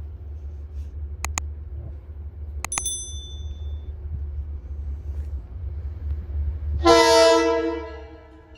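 Metro-North commuter train's horn sounding one short chord-like blast about seven seconds in, over a steady low rumble from the train. Two sharp metallic clanks come earlier, the second ringing briefly.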